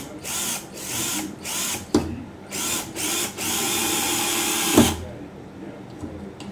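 Parkside PBSA 12 D2 12 V cordless drill-driver in first gear driving a screw into wood: several short trigger bursts, each speeding up and slowing down, then one steady run of about a second and a half that ends in a sharp click near the five-second mark.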